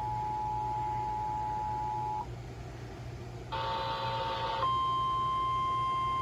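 Emergency alert tones over weather radio: the two-tone EAS attention signal, two steady tones sounding together, cuts off about two seconds in. After a short pause comes a buzzy burst of about a second, then a single steady tone, the NOAA Weather Radio 1050 Hz alert tone, starts about four and a half seconds in.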